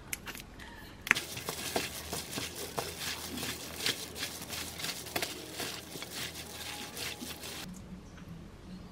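Hand in a disposable plastic glove tossing konjac noodles, bean sprouts and whelks in chogochujang sauce in a stainless steel bowl: a dense crinkling rustle with wet squishes and small clicks, starting about a second in and stopping suddenly near the end. A few faint clicks come before it as the sauce is squeezed on.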